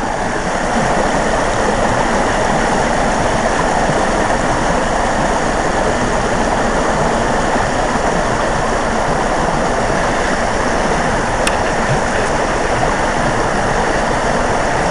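A shallow mountain river rushing over rocks in small rapids: a steady rush of water that grows a little louder in the first second, then holds.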